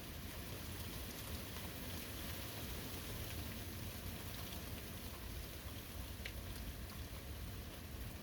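Steady rain falling on a forest, an even hiss with a few individual drops ticking out of it.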